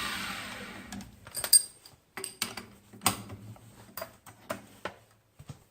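Grizzly G0704 milling machine spindle winding down after being switched off, its whine falling in pitch over about a second. It is followed by a series of sharp clicks and knocks.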